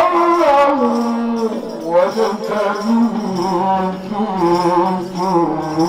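A man singing a maulid chant solo into a microphone: long held notes that slide between pitches and waver in ornamented runs.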